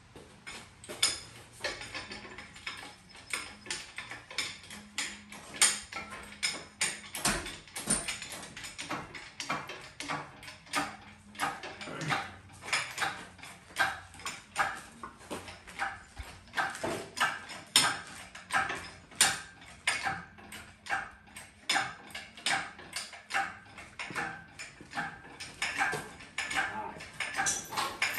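Hydraulic engine hoist being pumped by its handle, a rhythmic squeak and clank about twice a second, as it lifts a Jaguar 4.2 L engine and transmission.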